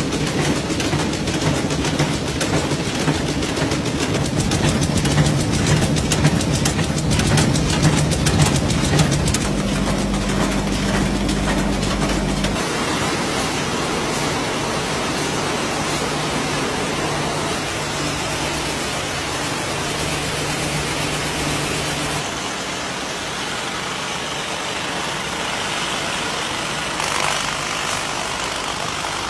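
Match-making machinery running: a loud, steady mechanical din with a low hum and fast clattering. The sound changes abruptly a few times as one machine gives way to another.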